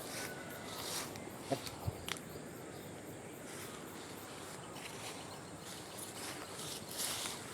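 Quiet outdoor ambience: a steady low hiss, with a few short soft knocks about one and a half to two seconds in.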